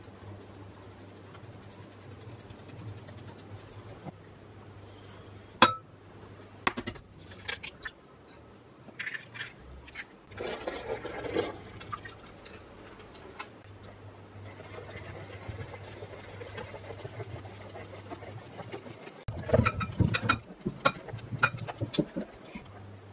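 Batter being made in a glass bowl over a low steady hum: a couple of sharp clicks about six seconds in, then milk poured into the flour mix in a short wash of liquid sound partway through. Near the end comes a quick run of clinks and scrapes as a utensil stirs the thick batter against the glass.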